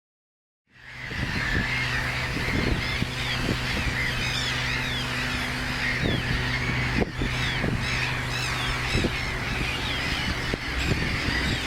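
Many birds calling at once, a dense run of short chirping calls, over a steady low hum that stops about two seconds before the end. The sound starts abruptly under a second in.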